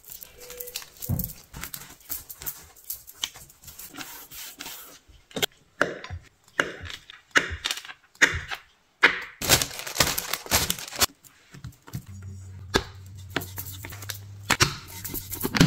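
Dough being worked and cut on a wooden table: pats and slaps on the dough, sharp knife taps as a roll of dough is cut into pieces, and soft handling of the pieces. A low steady hum comes in about three quarters of the way through.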